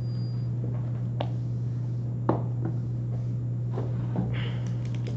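Steady low hum of a room, with a few scattered light clicks and knocks, the loudest about two seconds in.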